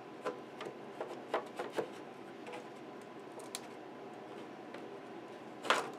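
Light clicks and taps from hands handling the model truck's sheet cab body on its chassis, a quick run of them in the first two seconds, then a louder knock near the end as the cab is worked loose to tilt up.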